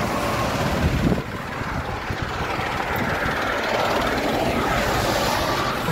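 Steady roar of traffic passing on a toll road, with a louder surge about a second in.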